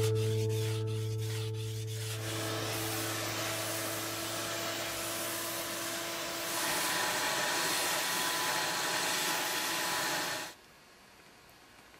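Acoustic guitar music fades out in the first few seconds as a power sander with a dust-extraction hose takes over in a steady, even hiss. The hiss grows louder about six and a half seconds in and stops abruptly near the end.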